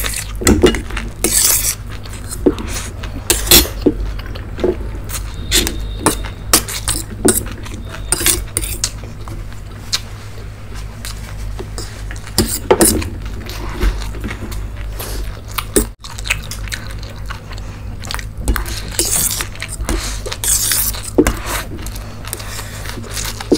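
Eating noodles from stainless steel plates: a fork scraping and clinking on steel in irregular clicks, with chewing, over a steady low hum.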